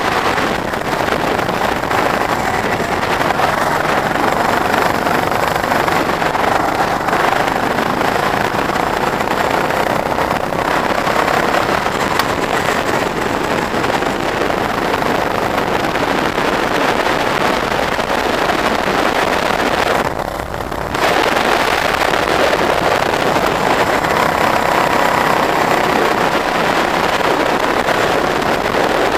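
Go-kart engine heard from on board while lapping a track, its pitch rising and falling with the throttle through the corners, mixed with the rush of wind and tyres. The level drops briefly about twenty seconds in.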